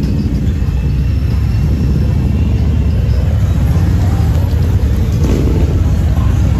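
A line of touring motorcycles, Harley-Davidson baggers and Honda Gold Wings among them, riding slowly past one after another, their engines running with a steady, low sound.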